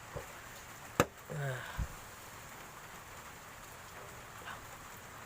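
A single sharp plastic click about a second in as a fiber-optic fast connector's inner part snaps back into its housing, the 'tek' that shows it is seated; a soft knock follows, over a steady hiss.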